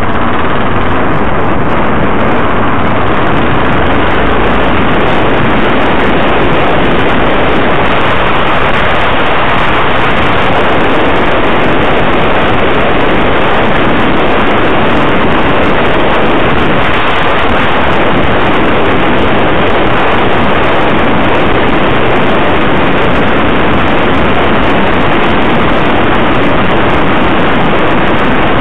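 Steady, loud rush of wind on the microphone mixed with road and engine noise from a vehicle-mounted camera moving through traffic.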